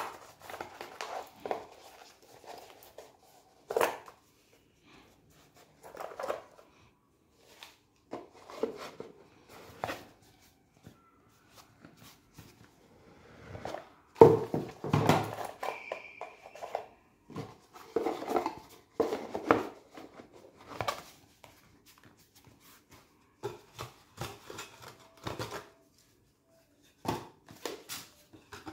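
Intermittent handling noises of watch packaging: a cardboard watch box and its lid and insert clicking and knocking against each other and the table, with some plastic rustling. The loudest clatter comes about halfway through.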